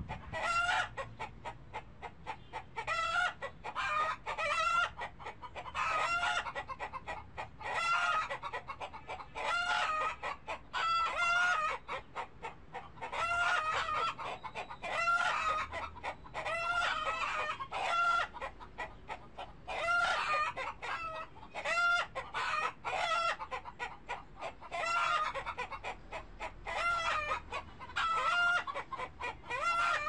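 Chickens clucking and calling over and over, in short runs of calls with brief pauses between them.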